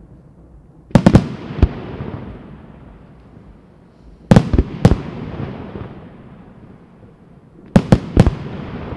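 Aerial firework shells bursting: three salvos of sharp bangs, about a second in, near the middle and near the end, each a quick run of three or four reports trailing off in a fading rumble.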